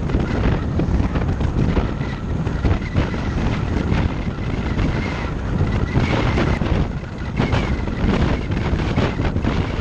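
Wind buffeting and rushing over a GoPro Hero Session mounted on the windshield of a moving car, with road rumble beneath and a thin steady whistle. The whistle comes from the camera sitting too close to the upper edge of the windshield.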